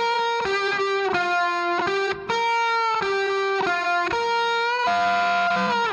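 Background music: a slow lead melody of held notes that bend and glide between pitches, with no beat behind it.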